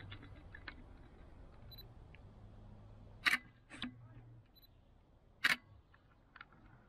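Three sharp clicks, about 3.3, 3.8 and 5.5 seconds in, the last the loudest, with a few fainter ticks and a faint low hum that dies away partway through.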